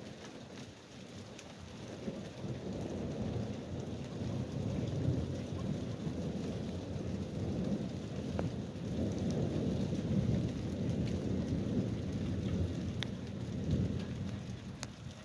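Long roll of thunder over steady rain, the low rumble swelling a couple of seconds in and fading away near the end, with scattered raindrop ticks.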